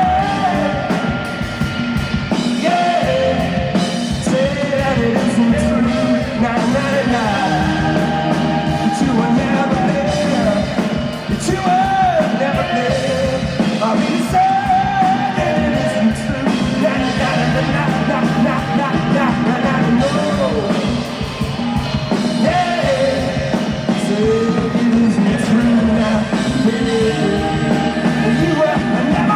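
Live band playing a mid-tempo song, with wordless singing or melodic lines that bend in pitch over the band.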